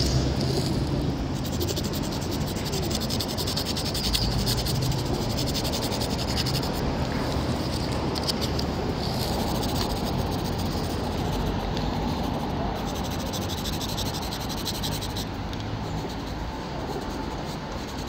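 Soft pastel sticks scraping and rasping over rough asphalt in repeated strokes, over a steady background of street noise.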